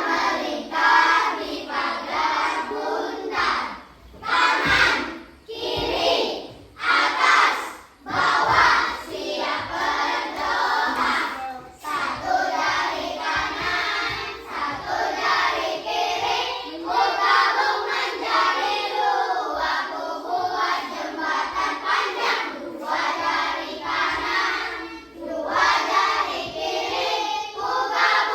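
A group of children singing together in unison, phrase after phrase with short breaks between lines.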